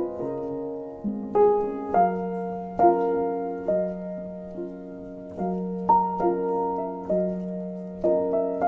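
Background piano music: a slow, gentle melody of single notes over held chords, each note struck and left to ring.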